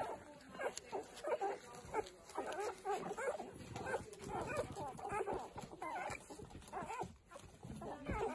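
Newborn Irish setter puppies nursing: loud suckling and gulping, mixed with many short high squeaks and whimpers, several a second.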